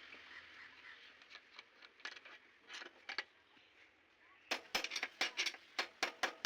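A few scattered sharp knocks, then from about four and a half seconds in a fast run of sharp taps, about five a second.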